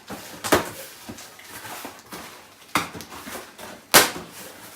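A cardboard product box being handled and opened, with light rustling and three sharp knocks or snaps: about half a second in, near three seconds, and loudest near four seconds.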